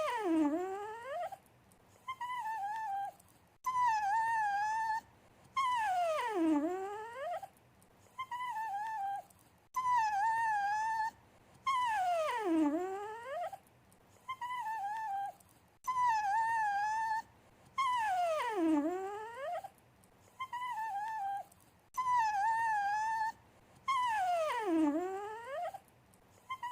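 A dog whining to beg for attention: short wavering high-pitched whines, then a long whine that slides down in pitch. The same sequence repeats about every six seconds.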